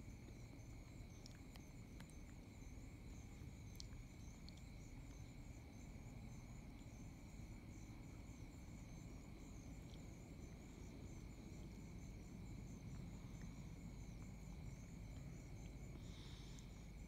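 Faint night insect chorus, crickets or katydids: a steady high trill with rapid, evenly repeating chirps above it, over a low background rumble.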